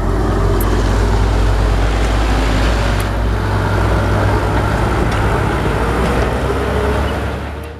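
Diesel engine of a Hino 500 bulk tanker truck passing close by and pulling away, a loud low drone that turns rougher after the middle and fades near the end.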